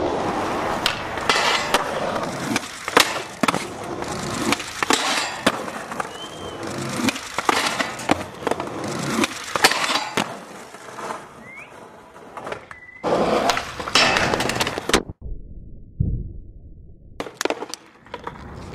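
Skateboard wheels rolling, with repeated sharp clacks of the board popping and landing. About fifteen seconds in the sound cuts abruptly to a low rumble for a couple of seconds, then a few more clacks follow.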